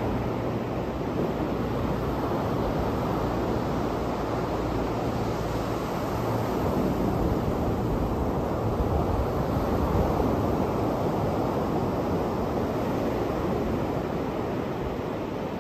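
Sea surf breaking on a sandy beach: a steady wash of waves that swells a little about halfway through.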